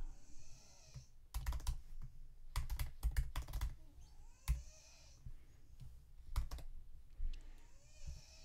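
Computer keyboard being typed on in short bursts of keystrokes with pauses between.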